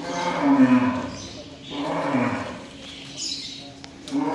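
Cattle mooing: two long, loud moos that each slide down in pitch, with a third beginning near the end.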